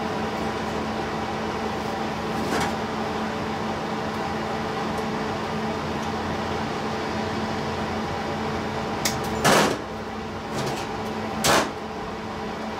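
Steady mechanical hum with a few held tones, from a fan or machine running in a workshop. Near the end come two short bursts of noise, the loudest sounds, the first just after a faint click.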